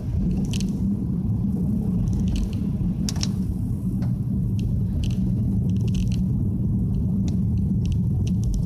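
Steady low rumble of road and engine noise inside a moving Nissan Y50 Fuga 350GT (3.5 L V6) as its tyres run on a wet road, with scattered light ticks every second or so.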